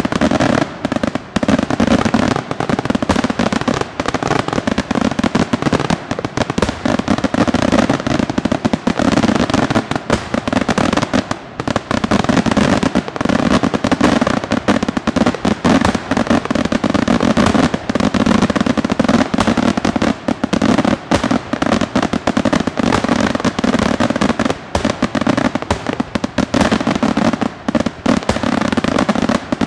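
Daylight aerial fireworks: shells bursting overhead into clusters of small salutes, a dense, unbroken barrage of bangs.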